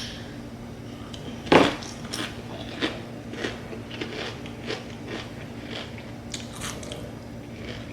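A person biting into crunchy food and chewing close to the microphone: one loud bite about a second and a half in, then a steady run of crunching chews.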